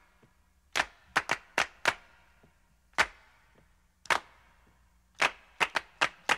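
A series of about a dozen sharp percussive snaps, some in quick runs of two or three and some alone, with near quiet between them.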